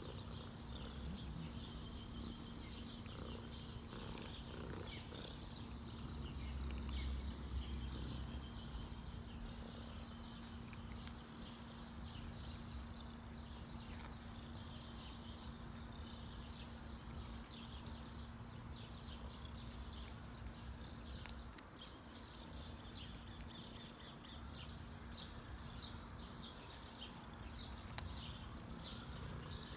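Domestic cat purring while being stroked: a continuous low pulsing rumble, loudest a few seconds in, with many short high chirps in the background.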